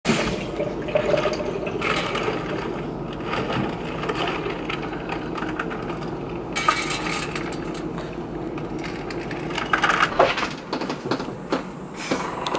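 Nuts rattling and clattering in steel bowls as they are handled and poured, a busy run of small hard clicks and knocks.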